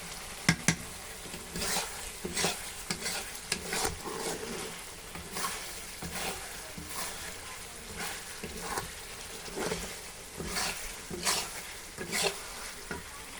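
Chicken frying in a pan and being stirred: a steady sizzle under repeated scraping strokes of a spatula against the pan, with two sharp knocks about half a second in.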